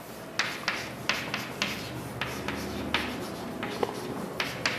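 Writing: a dozen or so short, irregular scratchy strokes of a pen on a writing surface, as a reaction product is written out.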